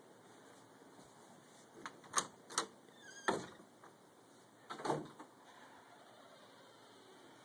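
A door being handled: a few sharp clicks and knocks, a short squeak, then a louder, drawn-out knock near the end of the sequence.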